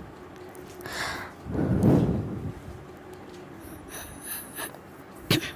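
A metal spoon stirring and scraping crumbled paneer bhurji around a steel kadhai, loudest about two seconds in, with a few light clinks of spoon on the pan and a sharp knock near the end.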